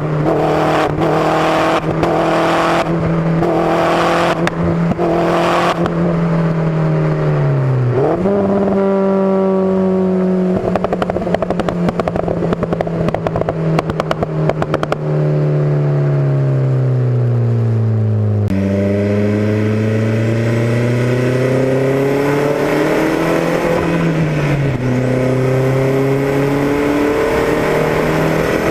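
Exhaust of a modified Opel Speedster Turbo's turbocharged four-cylinder engine, heard at the tailpipe in a road tunnel. It holds a steady speed with a run of sharp pops, blips once as the pitch dips and jumps back, then falls in pitch off the throttle with a stream of crackles. About two thirds of the way in it accelerates with a rising pitch, shifts once, and keeps climbing.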